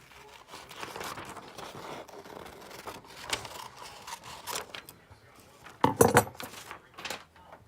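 Light clinks, taps and rustling of small hard objects being handled, with a louder clatter about six seconds in.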